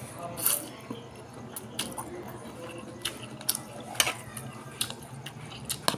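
A man slurping up strands of bamboo shoot and chewing, with a louder slurp about half a second in and scattered wet mouth clicks and smacks.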